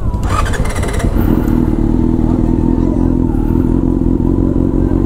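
Yamaha FZ6's inline-four engine howling at steady revs under way, after a brief rattle of clicks in the first second.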